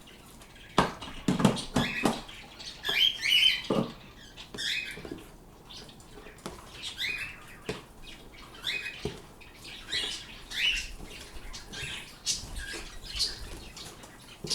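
Pet birds chirping in short, high calls every second or so, with a few sharp knocks and clatters in the first four seconds.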